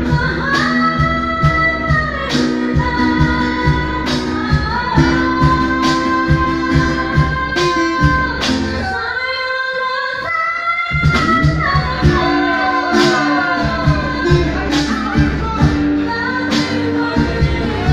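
A woman singing a slow ballad live into a microphone, holding long notes, over acoustic band accompaniment with a hand-played drum keeping a steady beat. The drum and low accompaniment drop out briefly about halfway through, then come back in.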